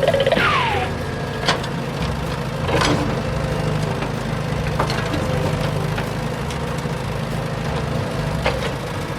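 Steady low engine-like running of RC construction vehicles, with a few sharp clicks and knocks scattered through.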